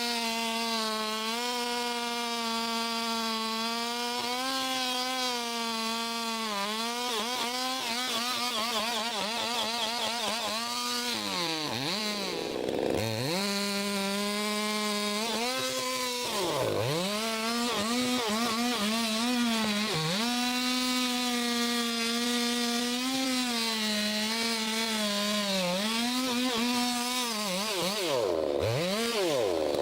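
Chainsaw running at high revs, cutting wood. Its steady engine note drops sharply and comes back up a few times, about twelve seconds in, about seventeen seconds in and twice near the end, as the throttle is let off and opened again.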